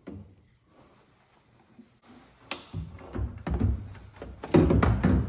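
Hard plastic clicks and knocks as a tail light housing and its twist-lock bulb socket are handled: a sharp click about two and a half seconds in, then a run of heavier thumps.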